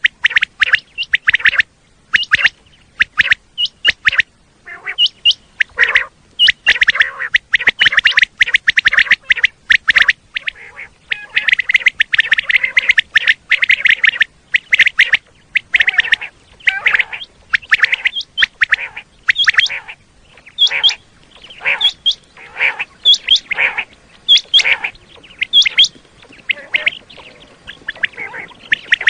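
Common quail calling: short, sharp notes in quick groups, the male's 'wet-my-lips' call, repeated over and over. Several calls overlap densely partway through.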